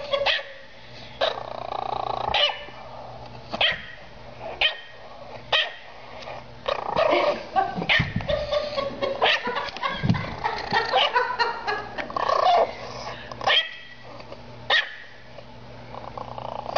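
A dog barking aggressively: sharp barks about once a second, crowding into a quicker flurry in the middle.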